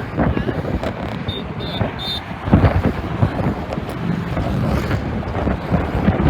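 Wind buffeting the microphone: a rough, uneven rumble. Three short high-pitched beeps come quickly one after another between one and two seconds in.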